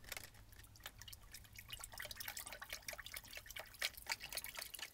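Light dripping and small splashes of liquid as a thin rod is worked about in a plastic tub of rust-removal solution holding small steel screws, heard as faint, irregular ticks.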